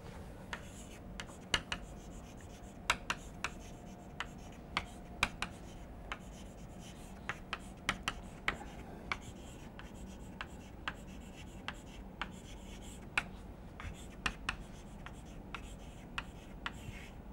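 Chalk writing on a chalkboard: a quiet, irregular run of sharp taps and short scratches as words are written.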